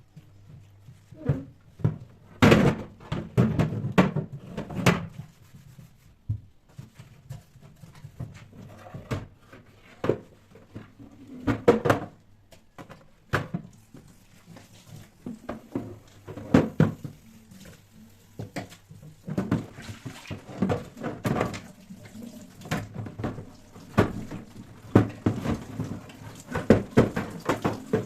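Irregular knocks, clicks and clatter of household items being handled and set down in a kitchen, in bunches with short pauses between.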